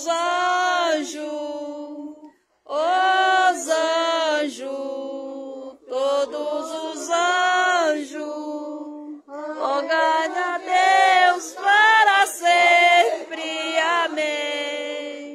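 A small group of men and women singing a devotional hymn together without instruments, in sung phrases of a few seconds with short breaths between them.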